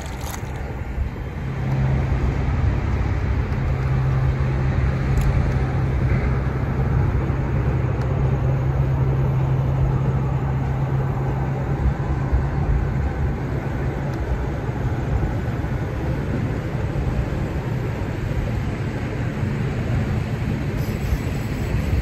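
Boat motor running steadily, a low hum over dense rushing noise that gets louder about a second and a half in.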